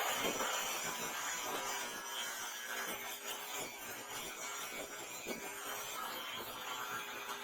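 Continuous scraping and rubbing of a tool at work, with faint irregular strokes.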